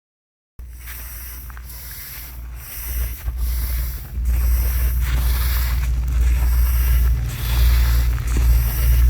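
Drying rice grain being stirred and spread, a run of rustling swishes about once a second over a steady low rumble, starting after a brief moment of silence and growing louder about four seconds in.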